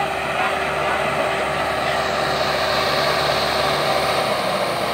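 Solis 90 tractor's diesel engine running steadily under load as it pulls a disc harrow through the soil.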